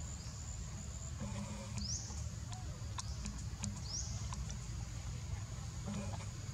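Baby monkeys giving two short, high, rising squeaks, with scattered small clicks and patters of movement, over a steady high whine and a low rumble.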